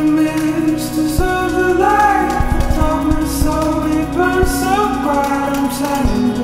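Background music: a song with a singing voice holding and sliding between long notes over a steady instrumental accompaniment.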